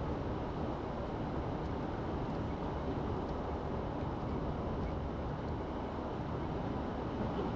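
Steady road noise of a car driving along a highway, heard from inside the cabin.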